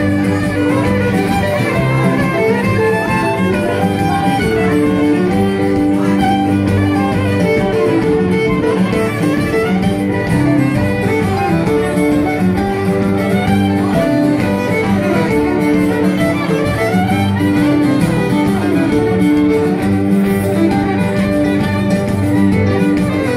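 Fiddle playing an Acadian traditional tune, accompanied by a strummed acoustic guitar, with no pause.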